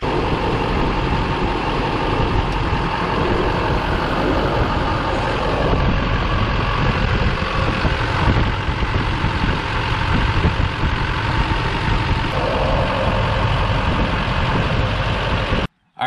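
Duramax turbodiesel V8 idling, heard close up in the open engine bay as a loud, steady run. The AC low-pressure-switch wire is being jumped so the compressor clutch kicks in.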